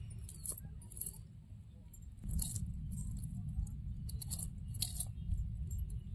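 A blade scraping a shol (snakehead) fish, in several short rasping strokes at irregular intervals, over a steady low rumble.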